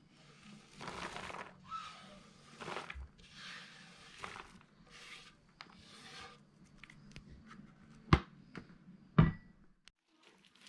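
A run of short brushing swishes over a faint steady hum, then two sharp knocks near the end, the second about a second after the first.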